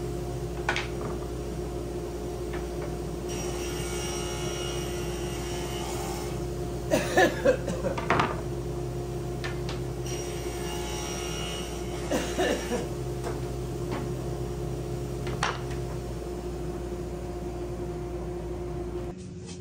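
Cabinet table saw running with a steady motor hum while boards are fed through it. Two stretches of a few seconds sound like the blade cutting wood, and each is followed by a short clatter of wooden pieces knocked and set down on the cast-iron table. The hum cuts off abruptly near the end.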